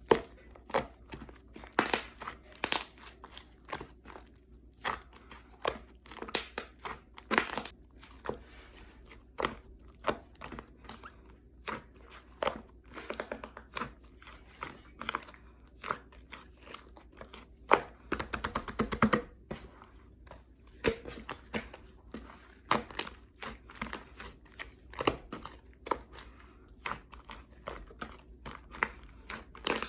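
Chocolate slime being squeezed, poked and stretched by hand, giving irregular sharp pops and crackles of trapped air, with a denser run of crackling about eighteen seconds in.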